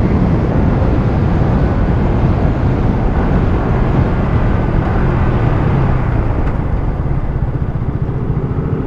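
Yamaha R15 V3 motorcycle ridden at about 90 km/h: wind rushing over the microphone with the single-cylinder engine running underneath. About six seconds in the bike slows and is changed down from fifth to third gear; the rush eases, the engine's throb comes through more clearly, and the overall level drops a little.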